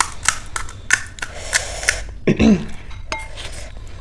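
Sharp crackles of crisp panipuri shells being cracked open with the fingers, several in quick succession, with light clinks against steel and glass bowls. A little over halfway through comes a short low vocal hum, and about three seconds in a brief ringing clink.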